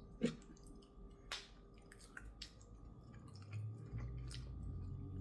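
Close-mic eating sounds: chewing and wet smacking on a chicken drumette with hot sauce, with scattered small clicks. A low, steady hum comes in a little after three seconds.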